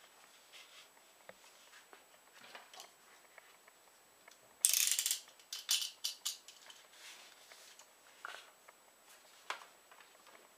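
Snap-off utility knife's blade slider ratcheting out: a quick run of clicks about halfway through, then several single clicks. Light paper handling and rustle around it.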